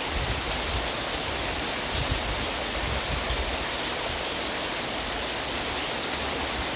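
Heavy rain pouring down steadily, a dense, even hiss with no let-up. A few brief low rumbles come and go underneath.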